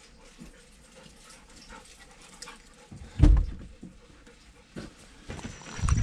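A heavy low thump about three seconds in, a car door shutting, with dog noises and smaller knocks around it, and a high, rapid beeping that starts near the end.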